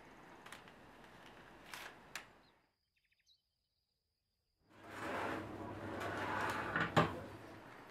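Faint room noise with a few light clicks, then a brief silent gap, then a hot oven running with its door open: a steady whir with a low hum and one sharp click near the end.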